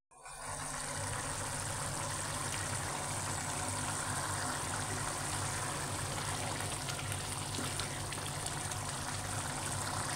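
Urad dal simmering in oil in a pan on low heat, a steady bubbling sizzle, with a low steady hum beneath it.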